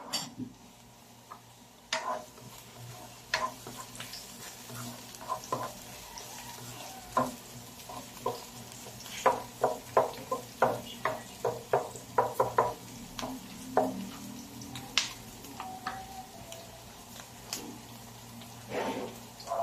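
Spatula stirring and tapping against a nonstick wok while garlic, ginger and onion fry in a little oil with a light sizzle; the taps come in a quick run in the middle.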